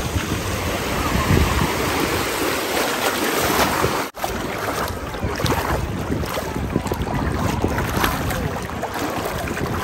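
Seashore noise: a steady rush of surf and wind buffeting the microphone. The sound drops out for an instant about four seconds in.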